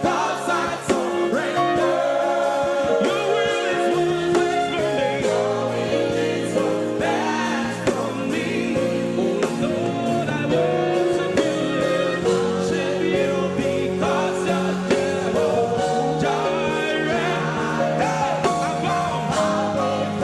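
Gospel worship song: voices singing over a steady instrumental backing.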